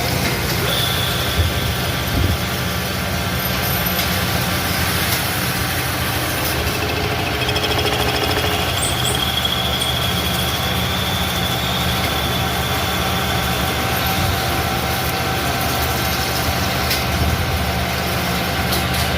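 CNC machine running steadily, with a low hum and a high whine that comes in briefly near the start and again for several seconds from about the middle.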